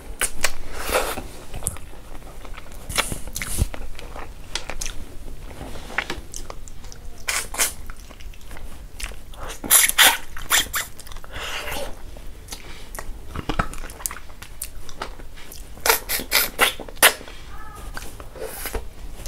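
Close-miked chewing and wet lip-smacking of a person eating pork and rice by hand, with irregular clicks and smacks that come in louder clusters about ten seconds in and again around sixteen to seventeen seconds.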